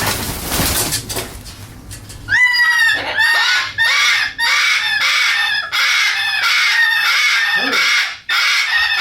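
A parrot screeching in loud, harsh, rapid calls that repeat almost without pause, starting about two seconds in after a short stretch of rustling noise.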